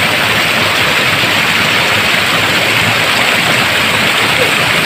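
Fast stream water rushing and foaming over rocks close by, a loud, steady rush.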